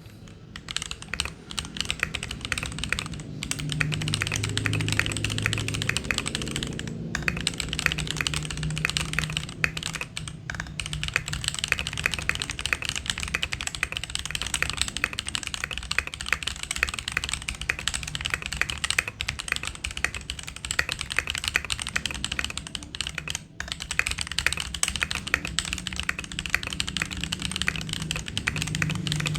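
Steady typing on an aluminium top-mount mechanical keyboard with Gateron Baby Kangaroo tactile switches, a brass plate and DCS keycaps, with a few brief pauses between bursts of keystrokes.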